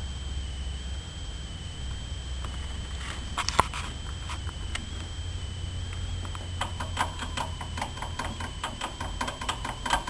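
Pet hamster moving about its cage: a few sharp clicks about a third of the way in, then a quick run of small clicks and scratches, about four or five a second, from about two-thirds of the way through.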